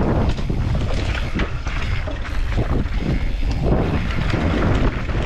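Heavy wind rumble on the microphone of a mountain bike descending a dirt trail, with tyre noise and many short rattles and knocks from the bike over the bumps.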